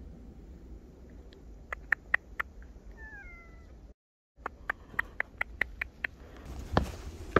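A cat gives one short, falling meow about three seconds in. Before and after it come runs of short, sharp clicks, about six in a second and a half, which are the loudest sounds.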